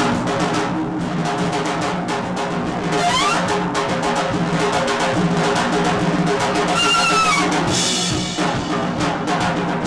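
Free-improvised ensemble music: dense drum and percussion playing under sustained drone tones, with pitched lines that slide up about three seconds in and arch up and down about seven seconds in.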